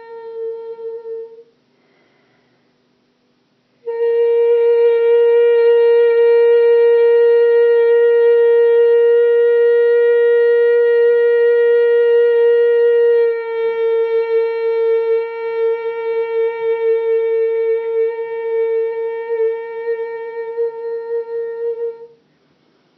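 A voice singing long held tones on one steady pitch, meditative light-language toning. One note ends about a second and a half in. After a short pause a single note is held for about eighteen seconds, and its tone colour shifts and wavers in loudness about halfway through.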